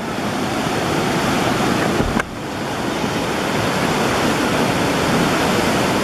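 River in flood rushing past, a dense steady noise of fast, muddy floodwater carrying logs and debris. The level drops suddenly about two seconds in and builds back over a second.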